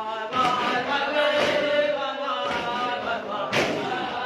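Revival Zion congregation chanting and singing together over drum thumps.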